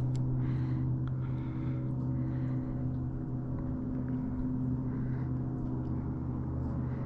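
A steady low motor hum at a constant pitch, unchanging throughout.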